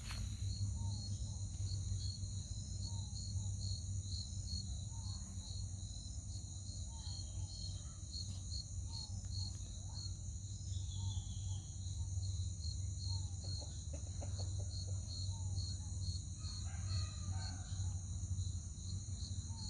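Rural outdoor ambience: a steady high-pitched drone of insects, short repeated bird chirps, and a rooster crowing about three-quarters of the way through.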